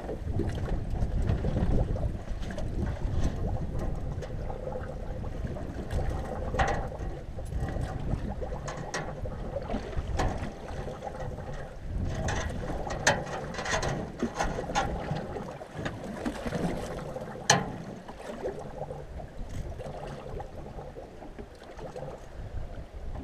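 Wind buffeting the microphone and choppy water slapping an open metal boat's hull, with scattered knocks and clatters of gear in the boat, the sharpest about seventeen seconds in.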